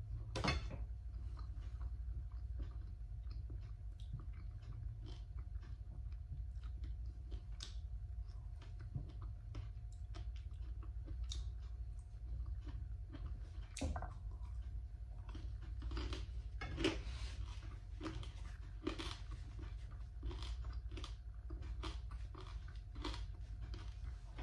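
A person chewing and crunching food close to the microphone, with scattered sharp crunches that come thickest about two-thirds of the way through. A steady low hum runs underneath.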